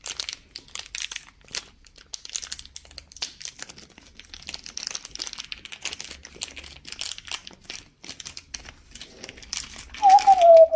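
Clear plastic bags crinkling and rustling as antennas are unwrapped from them by hand: a dense, irregular run of crackles. Near the end comes a short tone that falls slightly in pitch.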